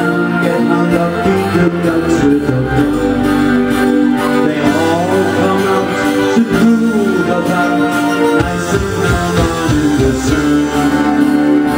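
Live rock band performing: electric guitars playing with a man singing into a handheld microphone.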